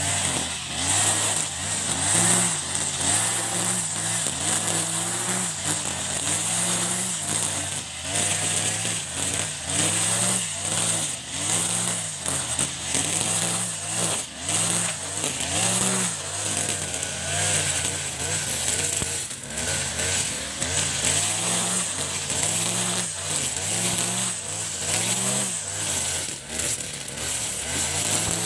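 Backpack brush cutter's two-stroke engine running under load, its revs rising and falling every second or so as the spinning trimmer head cuts through dry grass.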